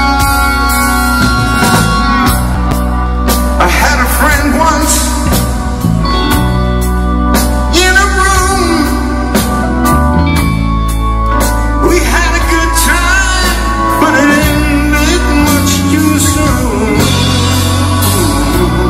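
Live rock band playing a slow blues ballad on bass, drums and guitar, with a male singer's voice coming in about three seconds in and continuing over the band.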